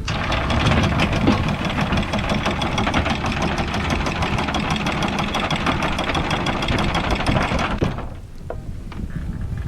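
Sailboat's anchor windlass paying out chain: a fast, even clatter of links running over the gypsy that starts sharply and stops suddenly about eight seconds in, as the anchor is dropped.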